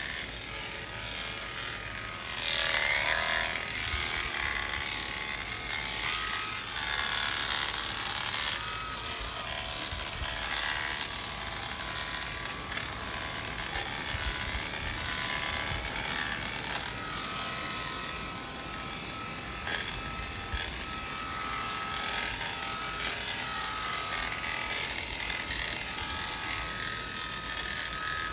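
Premier One electric sheep-shearing clippers running steadily as the comb and cutter work through the ram's fleece, with a brief louder stretch about three seconds in.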